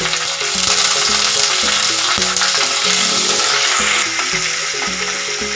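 Sliced onion, curry leaves and green chillies sizzling in hot oil in a clay pot, stirred with a wooden spatula in the second half. Background music with a steady beat plays over the frying.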